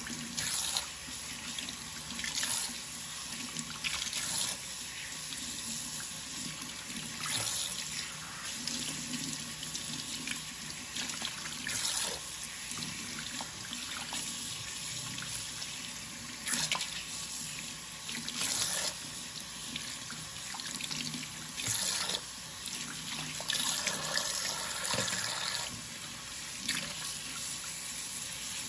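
Kitchen faucet running into a stainless steel sink as conditioner is rinsed out of hair bundles held under the stream, with splashes that surge briefly every couple of seconds as the hair is worked by hand.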